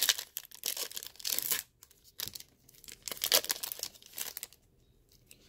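Trading-card pack wrapper being torn open and crinkled, in irregular bursts of rustling that stop about a second before the end.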